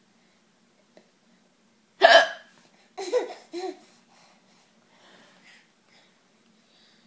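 A person hiccuping: one loud, sharp hiccup about two seconds in, followed about a second later by two shorter voice sounds.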